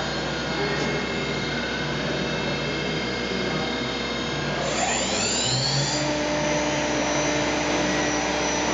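Spindle of a DMG-Deckel Maho DMU 50 T vertical machining centre running with a steady whine over machine noise. About five seconds in, it speeds up with a rising whine, then holds steady at about 8000 rpm.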